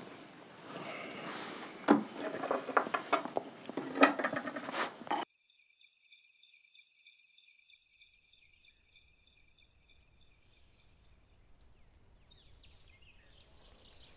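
Clatter and knocks of dishes and cutlery at a meal table, cut off abruptly about five seconds in. A steady chorus of crickets chirping follows, and birds begin calling near the end.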